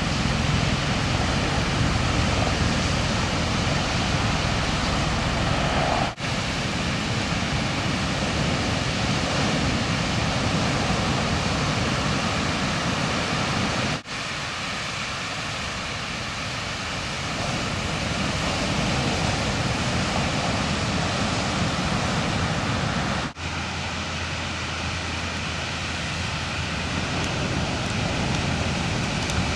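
Steady roar of breaking ocean surf mixed with wind noise on the camera microphone, broken by three momentary dropouts where the clips are cut together.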